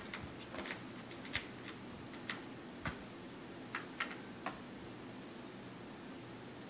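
A cat batting a plastic ball around inside a plastic circuit-track toy. The ball clicks and knocks against the track in about eight irregular taps, which stop after about four and a half seconds. A faint steady hum runs underneath.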